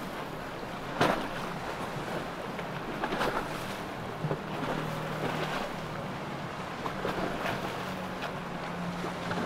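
Motorboat engine running with a steady low hum under rushing water and wind on the microphone, with a sharp gust hitting the microphone about a second in.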